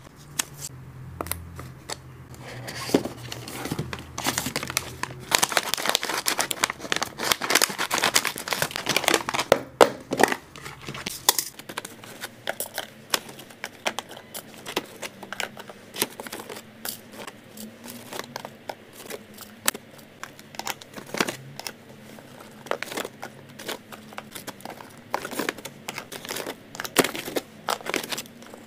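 Clear plastic packaging crinkling and rustling, mixed with many small clicks and taps of plastic boxes, lids and tongs as pet treats are moved into snap-lid storage containers. The crinkling is busiest in the first half.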